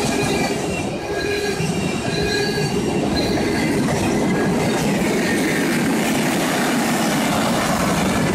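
Freight train's tank cars and hopper cars rolling past: a steady rumble of steel wheels on rail with some clickety-clack, and short high wheel squeals in the first few seconds.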